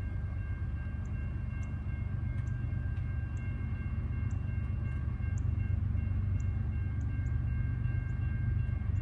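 Low, steady rumble of an approaching freight train's diesel locomotives, growing slowly louder, with faint short high chirps repeating about once a second.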